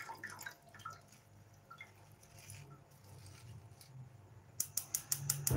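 Milk dripping from a plastic packet into a metal pan in small soft drips, followed near the end by a quick run of sharp clicks.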